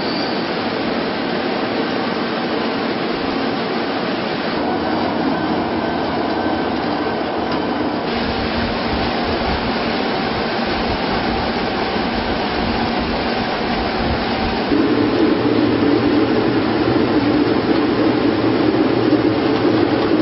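Potato-washing machine running: a continuous mechanical rumble and rattle that grows louder about fifteen seconds in.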